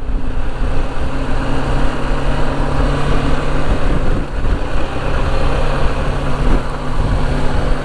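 BMW G310 GS's 313 cc single-cylinder engine running at a steady pace while riding, with a steady hum over a low rumble.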